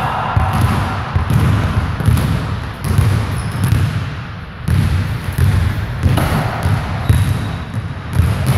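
Basketballs bouncing on a hardwood gym floor: an irregular run of dribbles and thuds from several balls.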